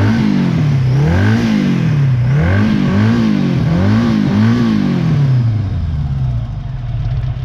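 Honda Gold Wing GL1000's flat-four engine revved in about six quick throttle blips, each rising and falling in pitch, then settling to a steady idle near the end.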